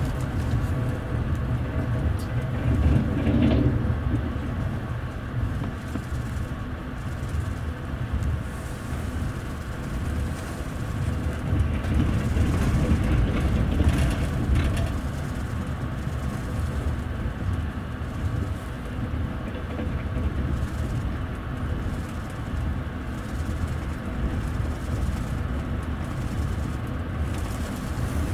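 Wheels of a TVZ double-decker passenger coach running on the rails, heard inside the upper deck: a steady low rumble that swells a few seconds in and again about halfway through.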